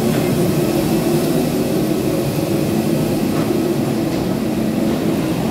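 Steady, loud low drone of a parked airliner's machinery, with a few unchanging hum tones running through it.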